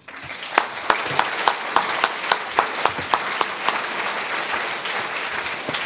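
Audience applauding, starting abruptly. One nearby clapper stands out with even claps about three a second for the first few seconds.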